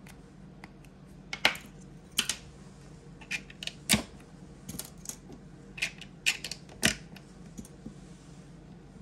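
Irregular plastic clicks and clacks as initiative-tracker rings are picked from a pile and snapped onto a dice tower's handle, about a dozen in all, the loudest about a second and a half, four and seven seconds in.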